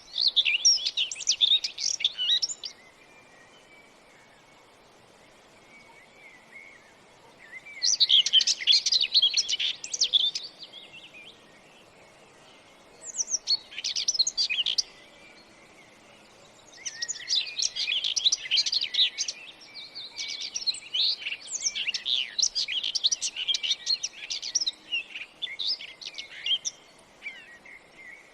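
Small birds chirping and twittering in busy bursts of quick high notes, a few seconds each with short gaps, then almost without pause over the second half.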